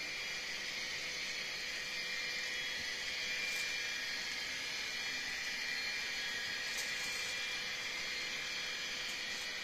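HO scale freight cars rolling past on model track: a steady hiss with a couple of faint clicks.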